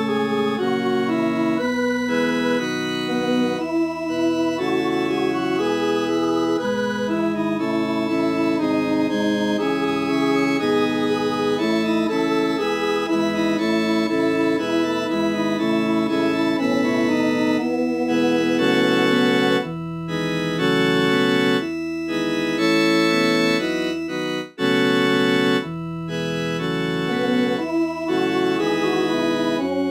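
Computer MIDI playback of a four-part Christmas choral arrangement from NoteWorthy Composer, made as an alto-part practice track, sounding as an organ. It plays block chords of held notes that start and stop abruptly, with a brief break about three quarters of the way through.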